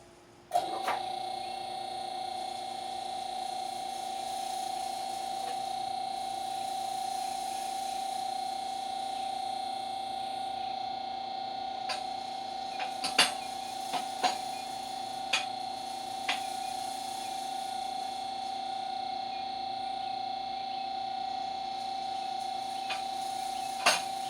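Electric hydraulic pump of a Quick Jack BL-5000SLX car lift switching on with a click and running with a steady, even hum as the lift raises. A few sharp clicks sound partway through and again near the end.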